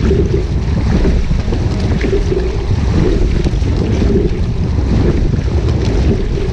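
Wind buffeting the microphone in a steady low rumble, over water lapping against the hull of a rowing shell sitting at rest.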